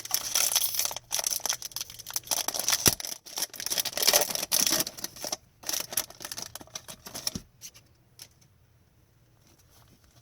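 Trading card packs and cards being handled: crinkling, tearing and rustling of foil pack wrappers and cards, dense for about five seconds, then sparser, stopping about seven and a half seconds in.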